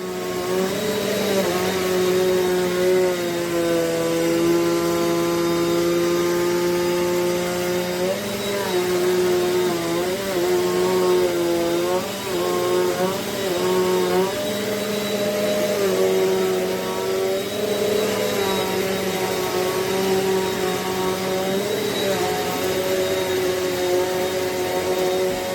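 Eureka NEU10AE4 bagless upright vacuum cleaner running on carpet, its motor pitch dipping and rising every second or two as it works.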